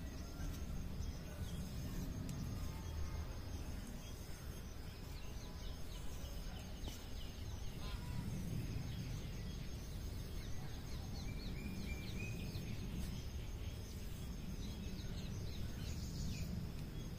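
Outdoor ambience: birds calling in short, quick falling chirps, most of them in the middle stretch, over a low steady rumble.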